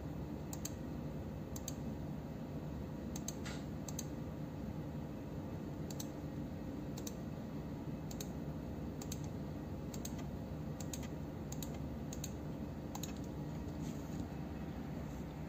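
Computer mouse clicks, single or in quick pairs, at irregular intervals of about half a second to two seconds, as points are placed one by one to trace an area with an on-screen measuring tool. A steady low hum runs underneath.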